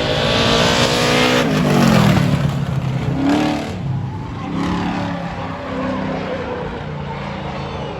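Drag-racing car engine at full throttle, its pitch climbing for about a second and a half, then dropping sharply, and then running on lower and steadier.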